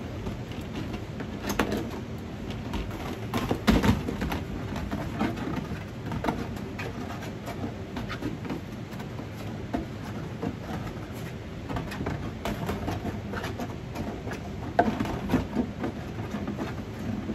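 Clear plastic storage tub being handled and turned over while its drilled holes are scraped clean of plastic burrs with scissors: plastic scraping with scattered clicks and knocks. The loudest knocks come about four seconds in and again near the end.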